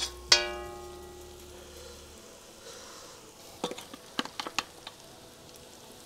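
A metal utensil strikes with a ringing clang that dies away over about a second, over a faint sizzle of onions frying in an iron kadai. Later, a few light clinks of a steel spoon against a steel bowl of raw chicken pieces.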